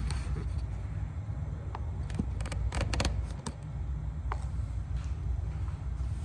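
Light clicks and taps from handling parts of an electric kick scooter during unboxing, over a steady low hum. The clicks cluster in the middle, with a few more near the end.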